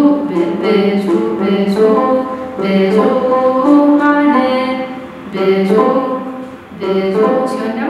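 A woman singing a slow hymn melody in held notes, phrase by phrase with short breaks, with a plucked kirar (Ethiopian lyre) accompanying her.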